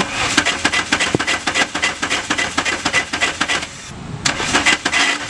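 Starter cranking the Mk2 Volkswagen Golf GTI's swapped-in ABA 2.0-litre four-cylinder engine in a fast, even chugging, in two tries with a short break about four seconds in. The engine turns over but never fires: a no-start that persists despite a new distributor, coil, plugs, wires and ignition control module.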